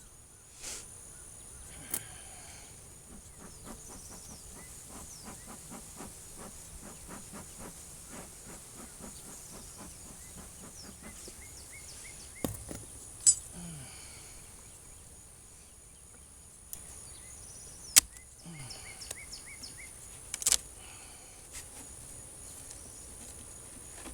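Wooden hive frames and a hive tool being handled. A run of quick light clicks lasts several seconds, and a few sharp knocks come later. Behind them runs a steady high chirping of insects.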